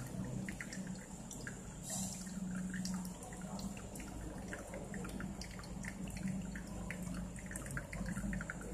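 Hot water trickling from a stainless gooseneck kettle onto wet coffee grounds in a paper-filtered pour-over dripper, with many small irregular drips and patters, over a steady low hum.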